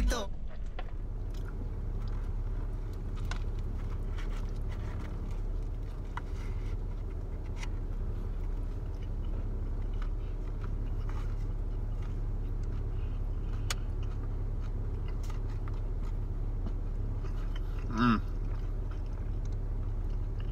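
A person chewing mouthfuls of a bacon cheeseburger, with faint wet mouth clicks over the steady low hum of a car cabin. A short hummed "mm" comes near the end.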